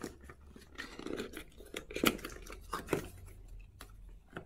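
Cardboard watch box being prised open by hand: the card scraping and rubbing as the inner tray and flap are worked loose, with a few sharp clicks.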